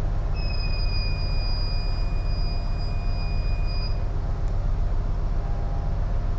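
Steady low hum of a ship's machinery, with a high steady tone held for about four seconds from just after the start.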